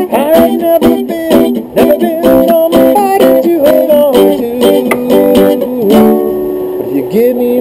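Background music: an instrumental passage led by guitar, with sustained, gliding melody notes.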